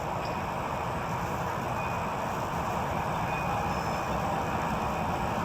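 Steady rushing background noise with no distinct events, even in level throughout.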